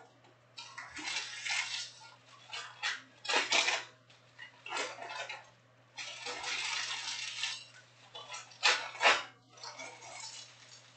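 Trading cards being handled and sorted on a table: an irregular run of slides, scrapes and light taps, with a longer rustling scrape about six seconds in. A steady low hum runs underneath.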